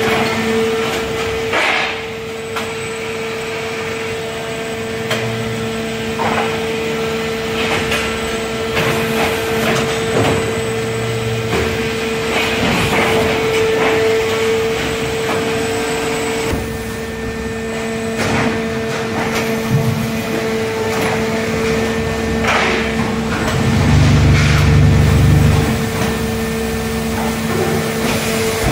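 Concrete block production line running: a steady machine hum with frequent metallic clanks and knocks from the steel block pallets, conveyors and the stacking gripper, and a louder low rumble near the end.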